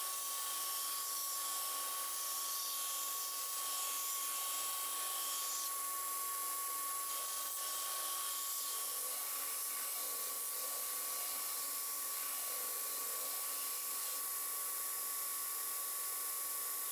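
Belt grinder running with a steady whine and hiss as a pattern-welded steel knife blade is ground against the abrasive belt.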